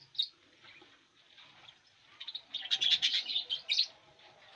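Caged birds chirping: one short high chirp just after the start, then a quick run of sharp, rapid chirps about two to four seconds in.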